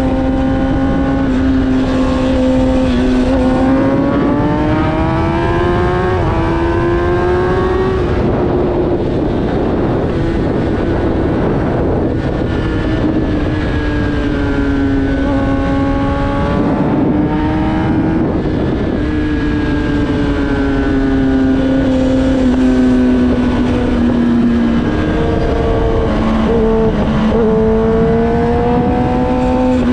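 Inline-four sport motorcycle engine running at high revs under way, its note rising and falling gradually with the throttle, over a steady rush of wind noise.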